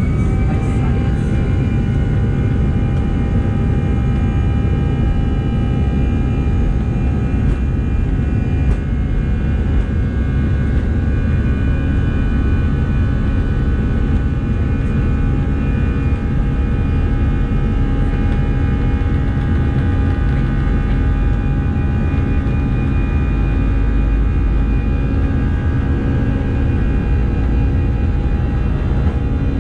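Airbus A319-111's CFM56 jet engines running at takeoff power, heard inside the cabin: a heavy low rumble under a steady, many-toned whine. The whine finishes rising as the engines reach full thrust right at the start, then holds steady.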